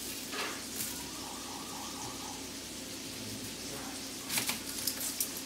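Sausage sizzling in a buttered frying pan, a steady hiss, with a few sharp knife taps on a cutting board as a red onion is cut: a couple near the start and a quick cluster about four seconds in.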